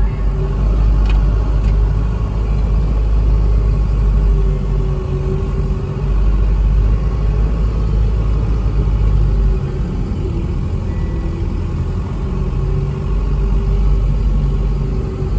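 Unimog expedition truck driving on the road: a steady low rumble of engine and road noise.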